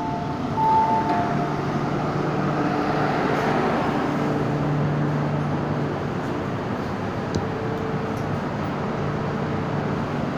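A two-tone electronic door chime sounds in the first second or so, then the steady hum and rush of a stationary MTR Island Line M-Train car's ventilation and onboard equipment with its doors open.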